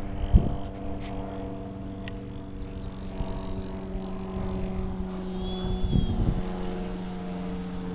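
Radio-controlled aerobatic airplane's motor running steadily in flight, its pitch shifting down and back up as it makes a pass. Wind buffets the microphone twice, once just after the start and again around six seconds in.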